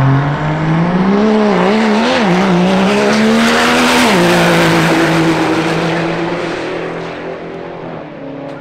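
Cummins diesel drag truck at full throttle down a drag strip. The engine note climbs and wavers, drops sharply to a lower steady pitch about four seconds in, then fades into the distance.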